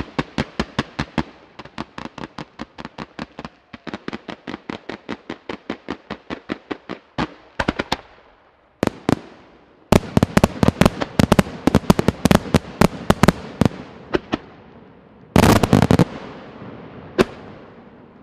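Fireworks display: a fast, even volley of bangs at about five a second for the first seven seconds, then a few separate reports, then a dense barrage of bangs from about ten seconds in, with a loud heavy cluster of blasts near the end and one last single bang.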